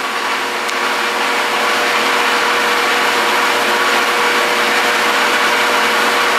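Large pedestal fan running close by: a steady whir of moving air with a constant hum in it.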